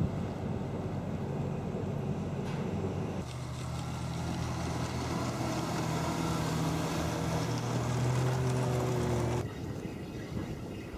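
A steady engine drone, then from about three seconds in a PistenBully snow groomer's diesel engine running as it drives over snow on its tracks, its note rising slightly. The engine sound cuts off suddenly near the end, leaving wind noise.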